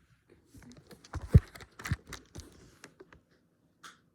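Irregular clicks, taps and knocks of a mobile phone being handled and pried open, with one heavier knock about a second in.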